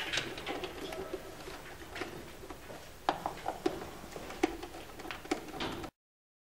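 Scattered small clicks and knocks of a wire being handled and pushed among the plastic distribution terminal blocks of an electrical panel, more frequent from about three seconds in. The sound cuts off abruptly near the end.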